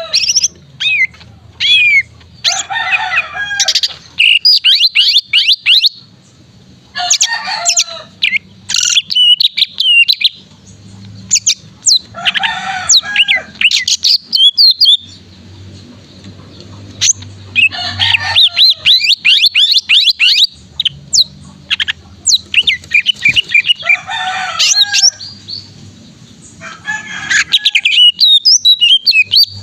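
Male cucak ijo (greater green leafbird) singing in loud bursts every few seconds, each a rapid run of sweeping whistled notes mixed with harsher, rougher phrases, over a faint low hum.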